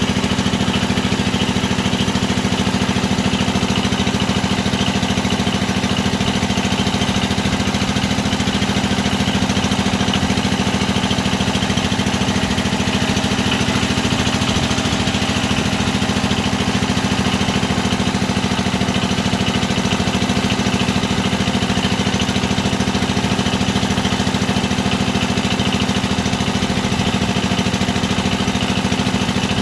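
Engine of a motorized wooden country boat running steadily, an even drone that does not change.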